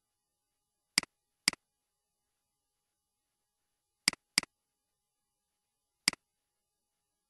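Computer mouse button clicked five times, each a sharp press-and-release click, with silence between. Two clicks about half a second apart come a second in, a quick double-click comes about four seconds in, and a single click comes near the end.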